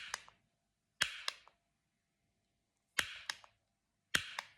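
Four sharp mechanical clicks, each followed by a couple of fainter clicks and a brief hiss, spaced one to two seconds apart with a longer gap in the middle.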